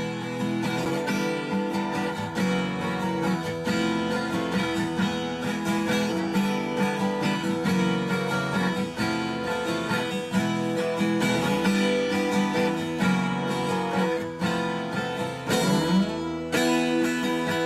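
Music played on strummed acoustic guitar, chords with a steady picking rhythm.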